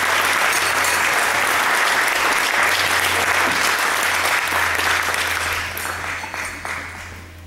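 Audience applauding steadily after a performance, fading over the last couple of seconds.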